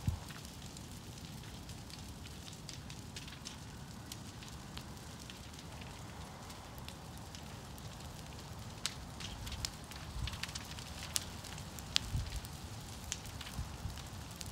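Large brush pile of broken tree limbs burning: the fire crackles and pops sharply over a steady low rumble, with the pops coming more often in the second half.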